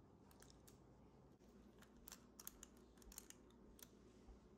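Faint, irregular clicks and ticks of a metal scoop against a glass bowl as set chocolate truffle mixture is scooped out and the ball is released.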